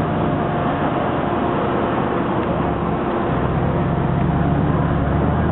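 Audi R8 engine running at low speed as the car drives slowly away in street traffic, with no revving. A deeper engine hum grows louder about three seconds in.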